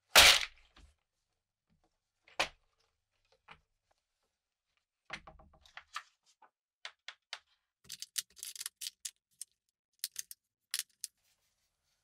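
A plastic compartment organizer box set down on a wooden workbench with a sharp knock, then a second knock. It is then opened, and small rotary-tool bits rattle and clink in their compartments as they are picked through, in a run of quick light clicks.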